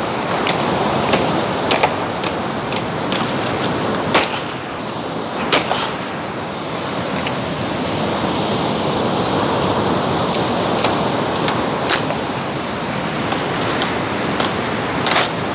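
Machete chopping and trimming a wooden stick: about a dozen sharp, irregularly spaced chops over a steady rushing noise.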